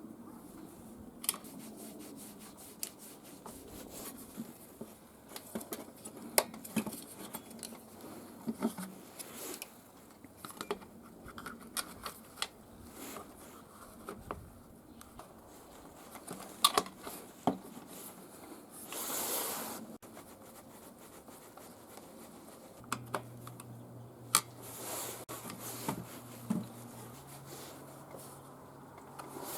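Hand work on small metal and plastic brush-cutter parts: irregular clicks, clinks and scrapes of tools and parts being handled, with a brief hiss about two-thirds of the way through.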